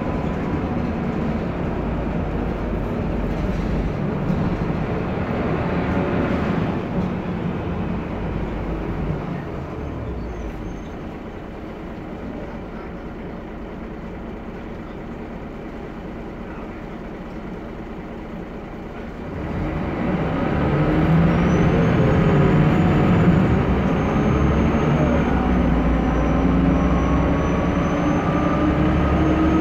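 Mercedes-Benz O405G articulated bus engine running, easing off to a quieter steady idle for about ten seconds. About twenty seconds in it gets louder again and rises in pitch as the bus pulls away and accelerates.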